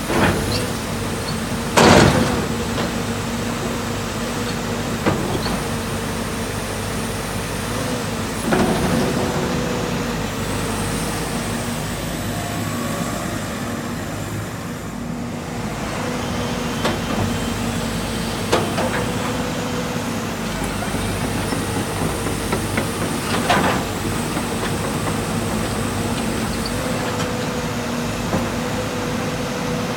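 JCB JS205 excavator's diesel engine running at a steady speed, with a few brief louder noises from the machine, the loudest about two seconds in.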